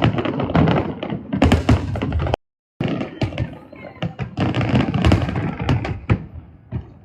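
Fireworks bursting in a rapid, dense barrage of bangs and cracks, several a second. The sound drops out completely for about half a second near the middle.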